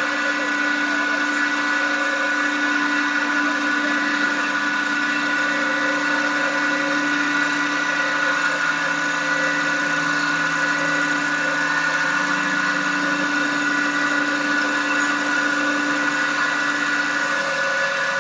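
CNC lathe-milling machine for wooden balusters running: a steady machine whine with several held tones over a noisy hiss of cutting. A low hum drops out near the end.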